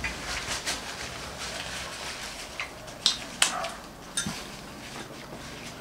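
People eating at a table: chewing and mouth sounds with scattered light clicks and taps of cutlery and dishes.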